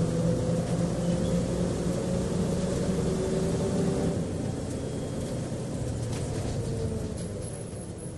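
Bus engine heard from inside the cabin, running with a steady drone that eases off and dips slightly in pitch over the last few seconds, as the bus slows.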